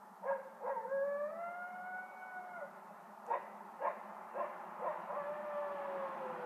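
Coyote howling. It gives two short yips, then a long howl that rises and holds for about two seconds, then four more sharp yips, then another long howl that slowly falls.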